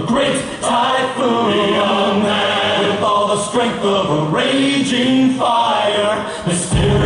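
Dance music played loud: male voices singing together in a chant-like chorus, with a heavy bass beat coming in near the end.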